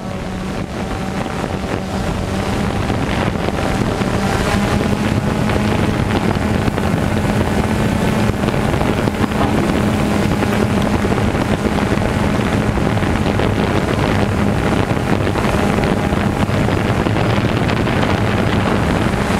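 DJI Phantom 2 quadcopter's motors and propellers running, a steady buzzing hum heard close up from the drone's onboard GoPro, with wind rushing over the microphone. The quadcopter is descending under automatic landing. The hum grows louder over the first few seconds, then holds steady.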